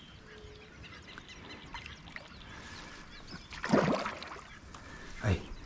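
Large traíra (wolf fish) thrashing on the line at the surface close to the bank: two short splashes, one near the middle and a smaller one near the end.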